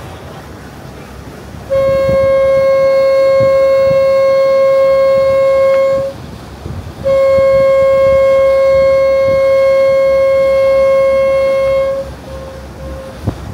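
Boat horn sounding two long blasts of about four seconds each, separated by a second's pause, followed near the end by two brief, much fainter toots.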